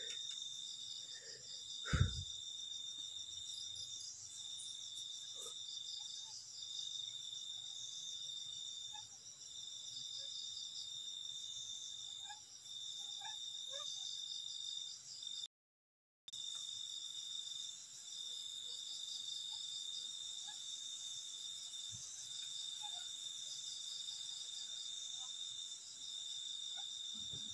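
Night insect chorus: a steady high trill that breaks briefly every second or two, over faster pulsing insect calls higher up. A single short knock comes about two seconds in, and the audio cuts out completely for about half a second past the middle.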